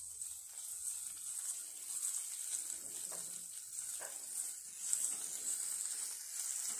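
Chopped onion and garlic sizzling in hot oil in a kadai, stirred with a wooden spatula that scrapes the pan a few times.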